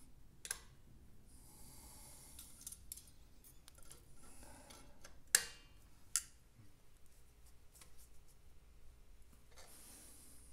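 Pliers clicking and scraping on the steel spring and linkage of a motorcycle's front prop stand: a few sharp metallic clicks, the loudest about five seconds in and another just after, with softer rubbing between.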